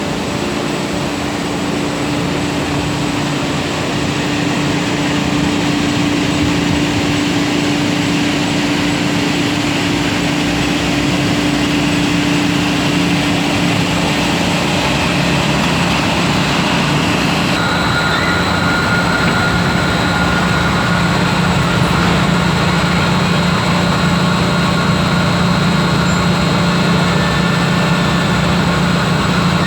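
Industrial machinery of a wood-chip-fired grain-dryer furnace running steadily: a dense hiss with a constant low hum and several steady tones. About 17 seconds in the sound changes abruptly to a slightly different mix of hums.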